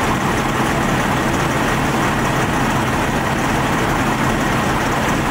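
A fire engine's diesel engine running steadily, a constant low hum with no change in speed.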